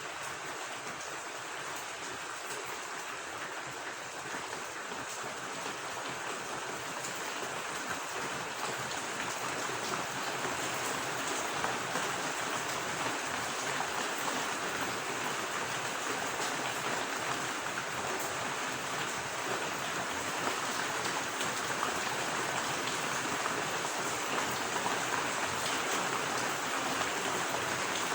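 Steady rain falling alongside running water, an even rushing hiss that grows slightly louder over the stretch.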